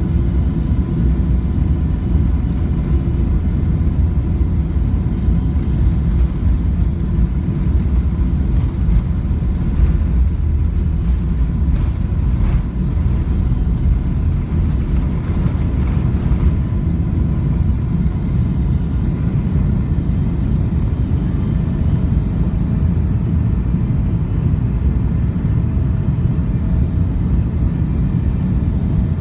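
Jet airliner engine noise: a loud, steady low rumble with a faint thin whine above it, unchanging throughout.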